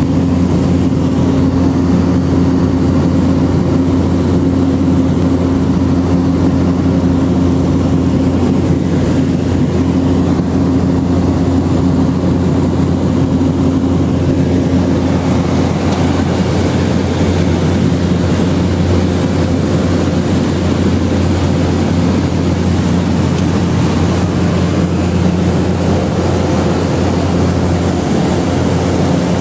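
Cabin noise of a Cessna 208B Caravan in flight: its single Pratt & Whitney PT6A turboprop engine and propeller running with a steady, loud drone, heard from inside the cabin. The low hum shifts slightly in tone about halfway through.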